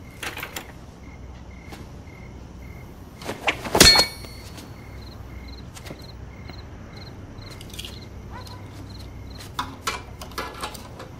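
A cricket chirping steadily in night-time ambience, in short evenly spaced high chirps about three a second. A sharp knock about four seconds in is the loudest sound, and a few light clicks follow near the end.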